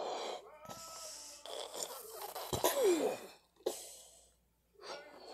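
A child blowing hard into a rubber balloon: several puffs of breath and rushing air, with a short squeal that falls in pitch about halfway through.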